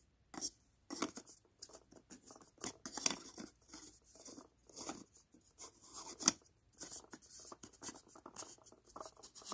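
Lens hood being turned and fitted onto a camera lens close to the microphone: irregular scrapes and small clicks of hood against lens barrel and fingers, the sharpest click about six seconds in.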